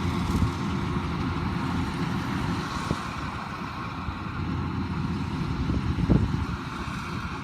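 Engine of heavy farm machinery running steadily, with a few short knocks, one near the start of the third second and a louder one about six seconds in.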